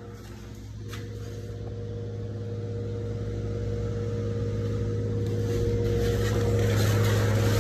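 A steady mechanical hum of an engine or motor running, growing gradually louder.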